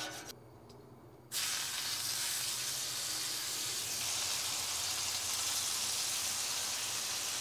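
Raw chicken breasts frying in avocado oil on a hot Blackstone flat-top griddle: a steady sizzle that starts suddenly about a second in, after a brief scrub of the oiling brush and a short lull.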